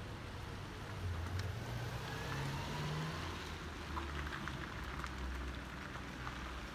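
Wet street traffic ambience: a low rumble of car engines under a steady hiss of tyres and water on the slushy, wet road, with a few faint ticks.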